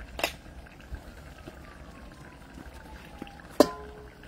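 Two sharp metal clinks about three seconds apart, a utensil knocking against the cooking pot; the second is louder and rings briefly.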